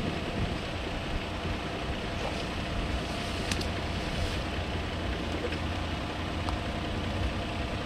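Steady wind rumbling on the microphone across open country, with a few faint ticks.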